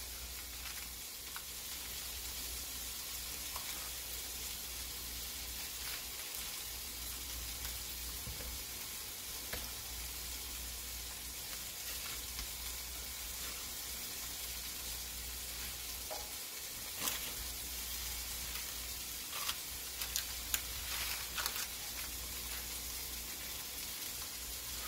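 Steady even hiss, with a few faint taps and scrapes near the end from a silicone spatula spreading soft cheese filling over puff pastry on a parchment-lined tray.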